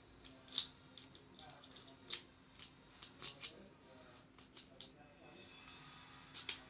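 Lock picks working inside a Master Lock padlock: faint, irregular small metallic clicks and scrapes as the pins are worked.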